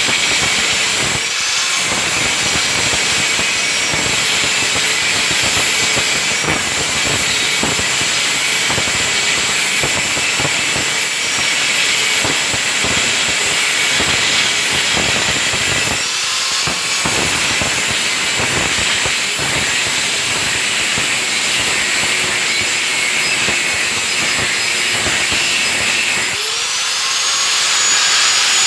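Angle grinder with a thin stainless-steel cut-off disc cutting through 18-gauge sheet metal: a steady, loud abrasive hiss of the disc biting into the steel. Near the end the disc comes free of the cut and the motor's whine rises as it spins up unloaded.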